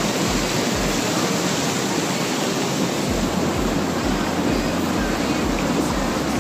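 Water rushing over a low stone weir, a steady, loud churning hiss of white water close to the microphone.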